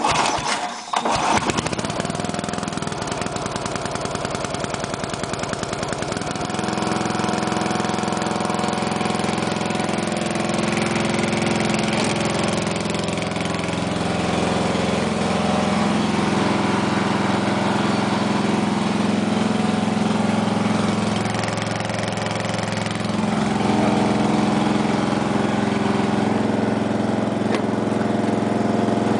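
Single-cylinder 8 HP Briggs & Stratton engine on a 1975 Sears lawn tractor, cold-started on full choke with the pull rope. It catches about a second in and then runs steadily. It settles into a fuller, louder run about six seconds in and gets louder again later on.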